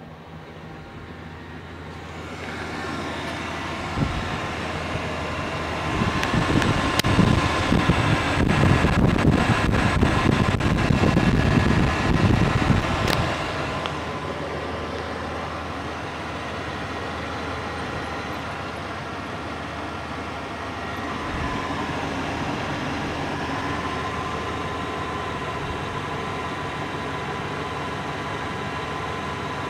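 Pickup truck engine idling steadily. For several seconds around the middle it is louder and noisier, with a few sharp clicks over it.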